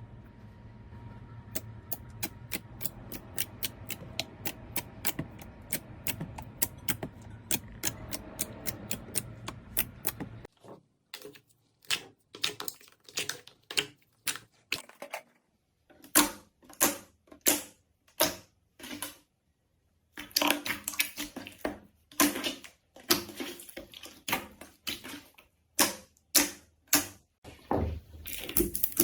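Slime being pressed and worked by hand. For about ten seconds it makes quick, evenly spaced clicking pops, about four a second, over a low hum. Then come louder, irregular popping and crackling clusters with brief silences between them.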